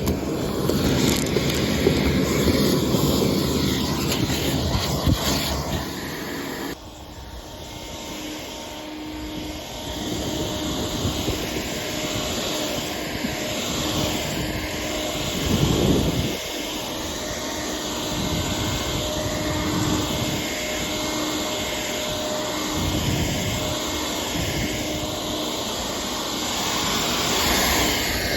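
Vacuum cleaner running with a steady jet-like whine and rush of air. The sound drops abruptly about seven seconds in, then the vacuum runs on more quietly with a steady hum.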